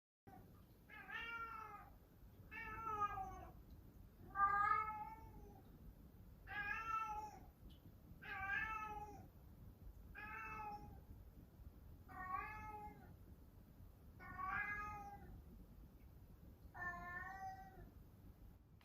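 A Scottish Fold cat meowing repeatedly, nine drawn-out meows about two seconds apart: a pet's insistent night-time meowing for attention and play before bed.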